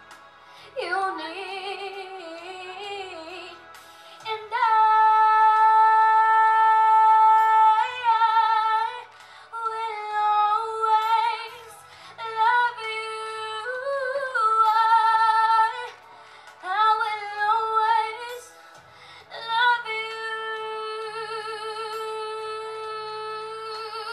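A girl singing solo into a microphone over a karaoke backing track, in phrases with two long held notes, some wavering with vibrato.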